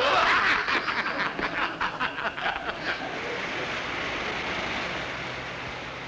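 A group of men laughing heartily for about three seconds, then steady noise of traffic passing on a road.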